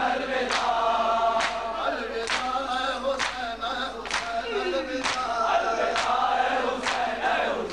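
Men chanting a noha (Shia lament) with a crowd of mourners singing along in chorus. Sharp unison chest-beating strokes (matam) fall at a steady beat of about one a second.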